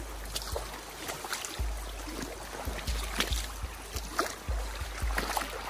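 Running stream water with irregular small splashes and knocks, over a low rumble.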